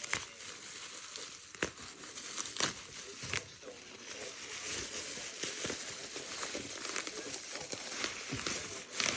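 Packaging being handled and unwrapped: continuous crinkling and rustling, with a few sharp clicks or knocks along the way.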